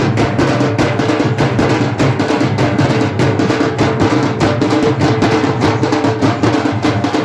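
Procession drums beating a fast, steady rhythm, loud and dense, with steady low tones of other music under the beat.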